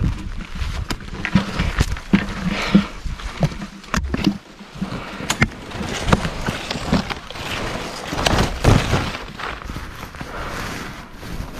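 Gloved hands and body scraping and gripping on a tree trunk's bark during a climb, with scattered knocks and clicks, rustling, and low handling rumbles on the mounted camera's microphone.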